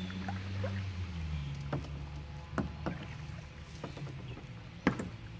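Kayak paddling: paddle strokes in the water with a few sharp knocks, the loudest near the end.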